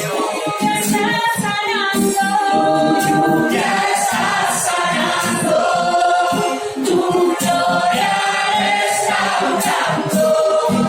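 A group of voices singing a worship song, holding long notes, with music under it.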